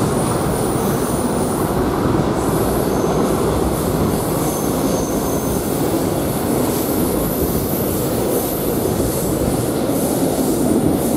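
Loaded timber wagons of a diesel-hauled freight train rolling past close below, a steady rumble of wheels on rail with faint high-pitched wheel squeal coming and going.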